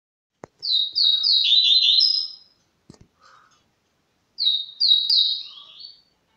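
Caged songbird, a 'canela branca', starting to sing: two short phrases of quick repeated high notes, each ending in a falling trill, the first about half a second in and the second about four seconds in. A faint knock comes between the phrases.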